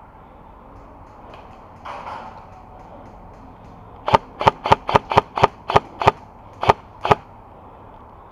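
Airsoft gun firing about ten sharp semi-automatic shots over about three seconds, a little under four a second, starting about halfway through. A brief noise comes earlier, about two seconds in.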